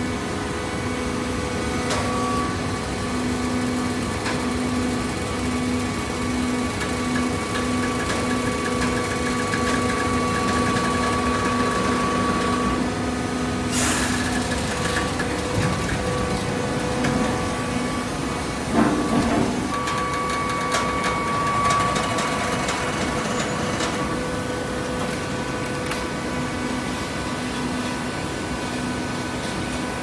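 Hydraulic OCC (waste cardboard) baler running: a steady machine hum from its hydraulic power unit, with a whine that comes and goes. A sharp knock comes about halfway through, and another a few seconds later.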